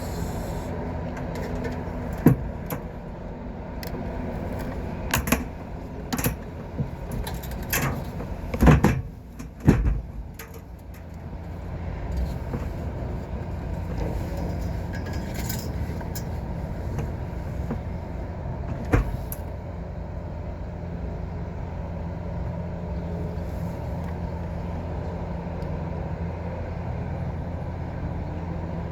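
Steady machinery hum, with a run of sharp clicks and knocks from hands and tools working on the unit's fittings between about 2 and 11 seconds in, and one more knock near 19 seconds.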